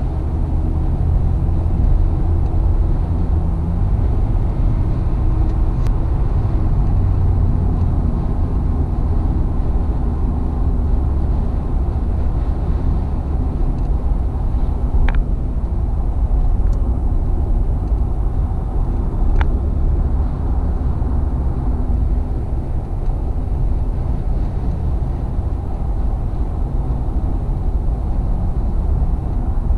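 Car cabin noise at highway speed: a steady low rumble of engine and tyres on the road, with a couple of faint clicks about halfway through.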